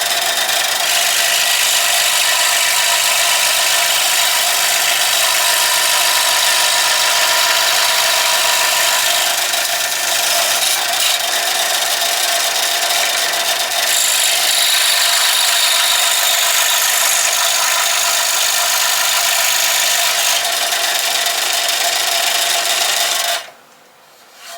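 Electric power saw running and cutting through 1/4-inch MDF: a steady motor whine over dense cutting noise. It shuts off abruptly about a second before the end.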